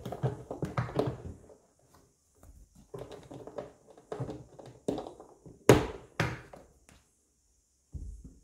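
Hard plastic pieces of a Sonic Prime pirate ship playset being handled and pressed into place: a string of taps and clicks, with two sharper knocks about six seconds in.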